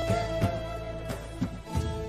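Intro music with held melodic notes over low percussive hits.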